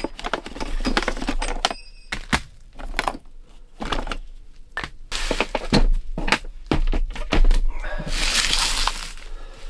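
Hands rummaging through a plastic storage box of fire-starting gear, with small items clicking and clattering against each other and the box, and a longer rustle near the end.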